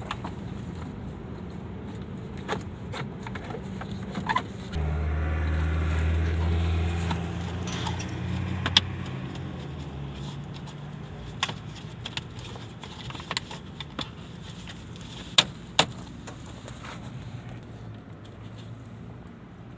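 Sharp clicks and knocks of plastic dashboard trim being fitted back and screwed in under a vehicle's dashboard, the loudest a close pair about three-quarters through. About five seconds in, a vehicle engine's low hum comes in suddenly and fades out over the next five seconds.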